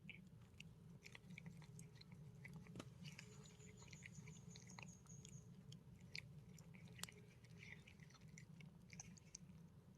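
Faint, irregular crunching and clicking of an animal chewing food, over a steady low hum.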